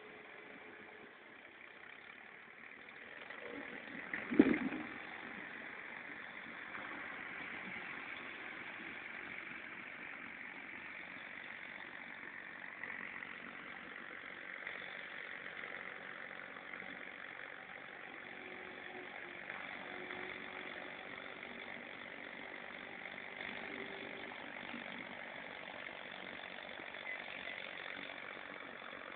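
Far-off tractor engine running steadily while it pushes sand with a front blade, with one sharp knock about four seconds in.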